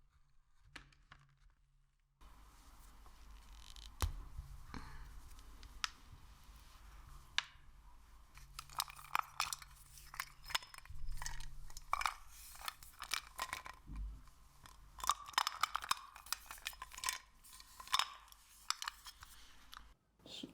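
Close-up sticky handling sounds: irregular crackling, popping clicks and small tearing noises. They start about two seconds in and grow denser in the second half.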